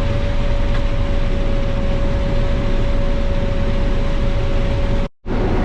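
Combine harvester running while harvesting corn, a steady drone of engine and machinery with a steady high whine over it. The sound drops out completely for a split second about five seconds in, and comes back without the whine.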